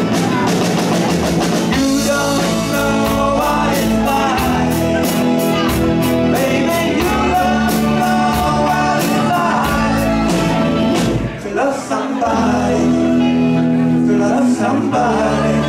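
Live rock band playing with drums, electric bass, electric guitar and keyboards, and a wavering lead melody line over the band. The band briefly thins out about eleven seconds in.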